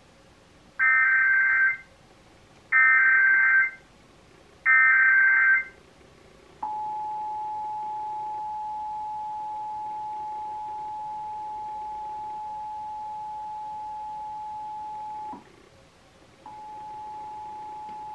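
Emergency Alert System Required Monthly Test signal: three one-second bursts of digital SAME header data, each a harsh warbling screech, then the steady two-tone EAS attention signal for about nine seconds. The attention tone breaks off briefly and starts again near the end.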